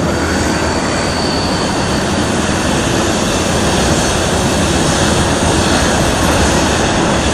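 Norfolk Southern freight train of covered hopper cars rolling across a railroad overpass: a steady rumble that does not let up.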